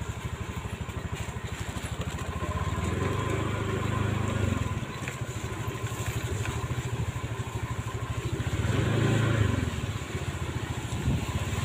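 A small motorcycle engine running as the bike rides slowly over a rough dirt road, its engine note picking up twice, about three and about nine seconds in.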